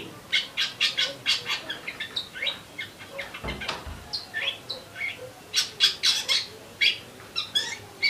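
A songbird chirps in a rapid, irregular run of short, sharp, sparrow-like chirps, with a brief low thump or flutter about three and a half seconds in.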